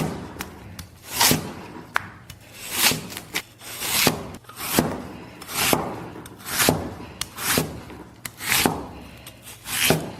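Potato being peeled with a peeler: repeated scraping strokes, about one a second, each a short rasp.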